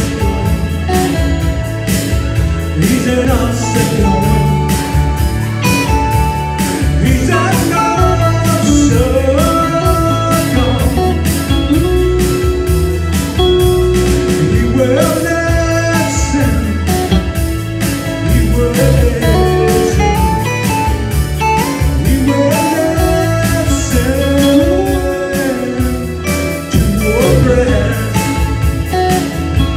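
A worship song played live: a man sings over strummed acoustic guitar and electric bass.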